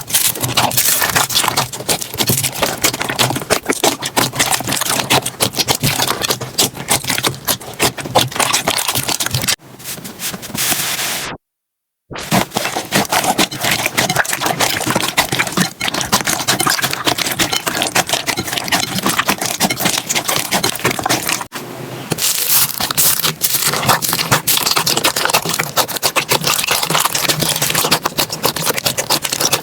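Slime being worked with a dense, crunchy crackling and popping of many small clicks. A few abrupt breaks, one of them a brief silence, mark changes from one slime clip to the next.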